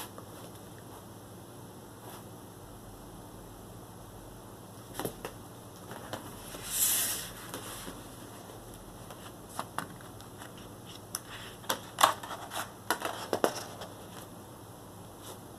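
Large heavy-paper art prints being handled and turned by hand: a short papery swish about seven seconds in, then a cluster of sharp taps and clicks from the stiff sheets. The presenter takes the paper for cardstock.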